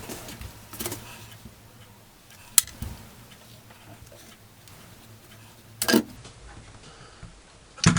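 A few short plastic clicks and knocks from handling a graphics card while the cooler's fan cable connector is unplugged from its header on the board. The loudest knock comes about six seconds in.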